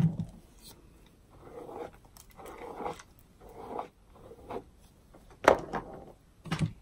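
Hairbrush strokes through the straight hair of a lace frontal wig: four short soft swishes about a second apart, followed by two sharp knocks near the end.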